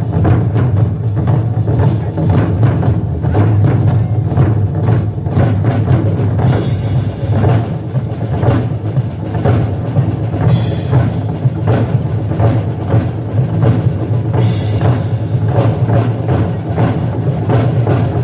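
Music with dense, steady drumming and percussion, played on stage, with brief brighter hissy stretches a few times.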